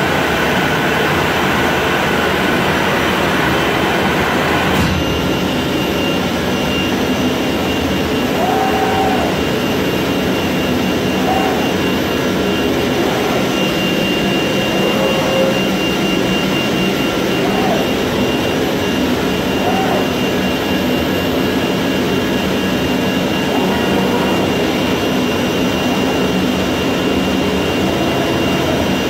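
Flatbed CNC cutting table running as it cuts out printed sticker sheets: a loud, steady rushing machine noise, with a few brief faint whines as the cutting head moves.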